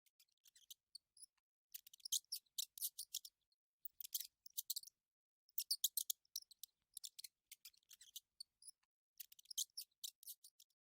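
High-pitched chirping in quick groups of short pulses, with brief pauses between the groups.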